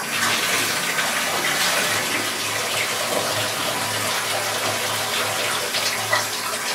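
Bathtub filling from a running tap: a steady rush of water with a low hum underneath.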